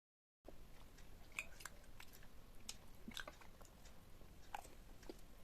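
Faint close-miked chewing with scattered soft clicks and crackles, after a brief stretch of dead silence at the start.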